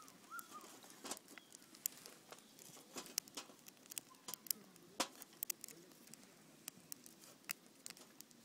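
Firewood burning in a fire pit, crackling with irregular sharp pops, the loudest pop about five seconds in.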